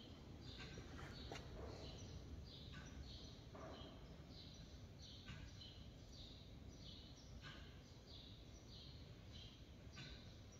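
Faint, high chirps of a small bird, about two a second, over quiet room tone.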